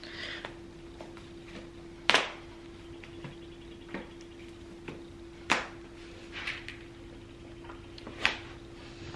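Someone getting dressed and pulling on sneakers: three sharp knocks, about three seconds apart, with a few lighter clicks and brief soft rustles of clothing, over a steady low hum.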